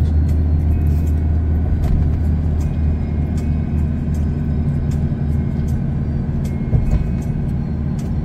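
Steady low rumble of a car driving at speed, engine and road noise heard from inside the cabin.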